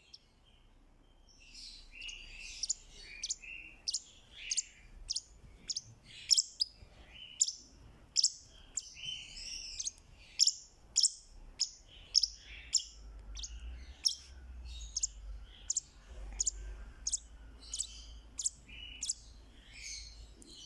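Fischer's lovebird calling: sharp, high chirps repeating about one and a half times a second over softer chattering. The calls start about a second and a half in.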